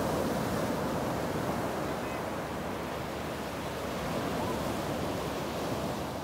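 Ocean surf washing onto a flat sandy beach: a steady rush of small breaking waves that swells a little and eases again.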